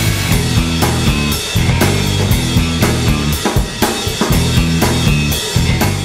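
Intro music with a steady drum-kit beat over a bass line.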